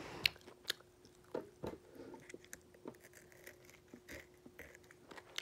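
M&M's chocolate candies chewed close to the microphone: scattered crunches and mouth clicks as the candy shells break.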